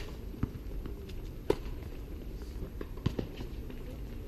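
Tennis rally on a hard court: a few sharp pops of the ball off rackets and court, the loudest about a second and a half in, over a steady low background rumble.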